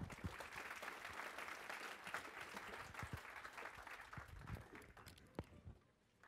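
Lecture-hall audience applauding: many hands clapping together, dying away near the end.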